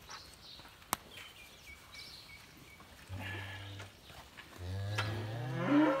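Dairy cow mooing twice: a short low moo about three seconds in, then a longer, louder moo that rises in pitch near the end. A single sharp click about a second in.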